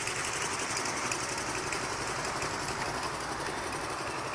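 A motor or engine running steadily with a rapid, even beat.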